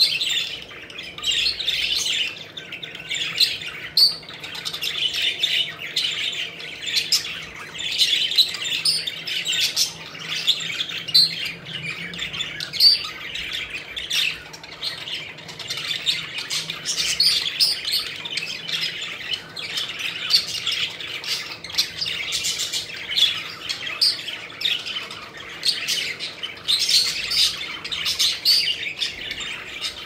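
A flock of budgerigars chirping and chattering without a break, many birds calling at once.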